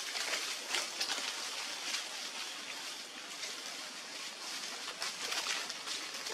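Steady outdoor background hiss with faint, scattered rustles and ticks.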